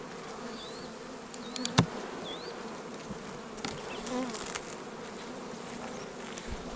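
Honeybee colony buzzing steadily from an open hive, the bees agitated by the inspection. A single sharp knock about two seconds in.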